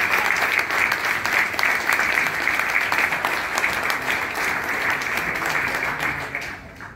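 An audience applauding, fading away near the end.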